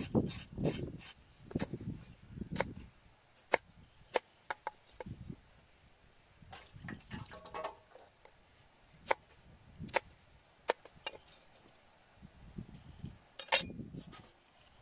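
A cleaver chopping lemongrass stalks on a wooden chopping board: irregular sharp knocks with pauses between them, and duller thuds in the first few seconds.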